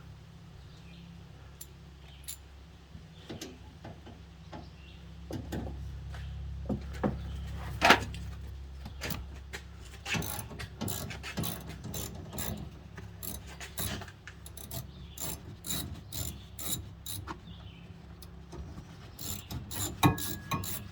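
Hand ratchet wrench clicking in short quick runs as bracket bolts in a car are worked loose, with one sharp knock about eight seconds in over a low steady hum.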